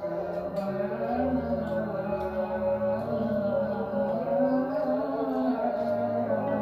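Background music with a sung melody over sustained instrumental tones.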